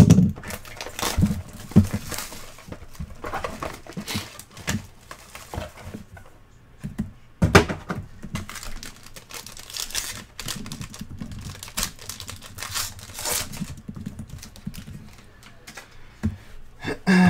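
A foil-wrapped baseball card pack being crinkled and torn open, with cardboard rustling and scattered clicks and knocks as the box and cards are handled. One sharper, louder crack about seven and a half seconds in.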